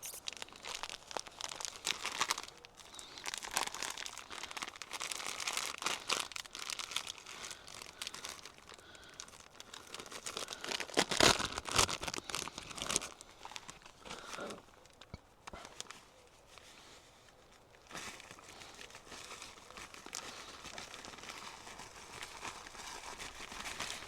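Crinkling and rustling as crumble topping is handled and added over the fruit, coming in irregular bursts. The rustling is loudest about halfway through, then drops to a short lull before quieter rustling near the end.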